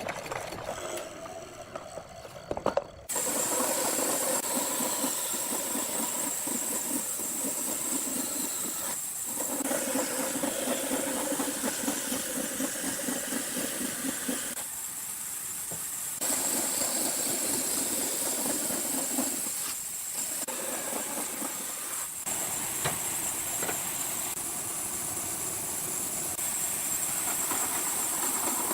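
Steady, hissing machine noise that starts suddenly about three seconds in and keeps running, with a few brief dips.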